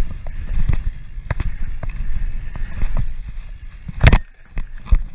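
Mountain bike riding fast down a hardpacked dirt jump track, with wind rumbling on the microphone and the bike rattling and clicking over the bumps. About four seconds in a hard thud, like the bike landing a jump, with a smaller knock just under a second later.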